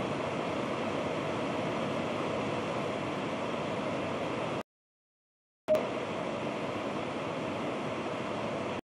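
Steady rushing noise on the live launch-pad audio feed. It cuts out to dead silence for about a second near the middle, comes back with a click, and drops out again near the end.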